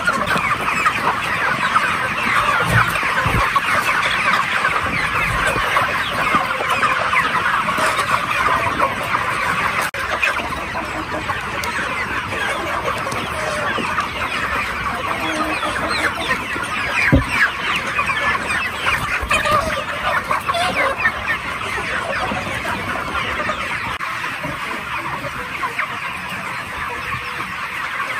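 A large flock of young chickens, about 40 days old, clucking and cheeping all together in a dense, continuous chatter.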